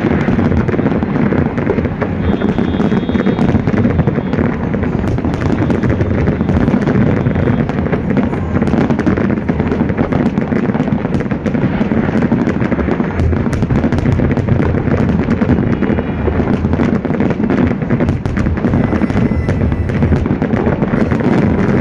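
A fireworks display in full barrage: aerial shells bursting in rapid, overlapping bangs with no break, along with fountain fireworks firing from the water.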